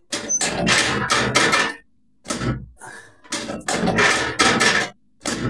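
Quick runs of percussive knocks, several a second, in bursts with short pauses between them, from hands-on work during a chiropractic treatment.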